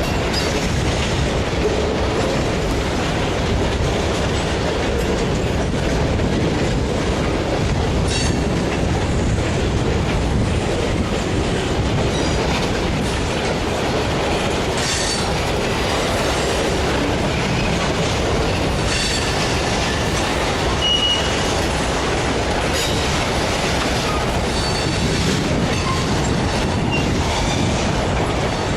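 Steady, loud rumbling of a moving vehicle, with scattered clicks and one brief high squeal late on.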